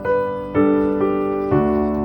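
Background piano music, with slow notes or chords struck about every half second.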